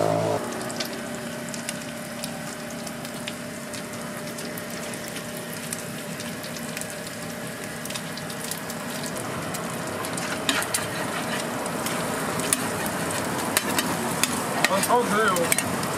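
Beaten egg and shredded cabbage sizzling on a hot flat-top griddle, a steady frying hiss with scattered crackles. The crackles and ticks grow busier and a little louder over the last few seconds.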